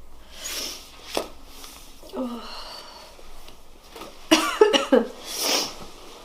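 A man with a cold sniffing and drawing sharp, hissing breaths, then a loud voiced outburst of several sharp catches about four seconds in, followed by a harsh hissing breath: a sneezing or coughing fit from a head cold.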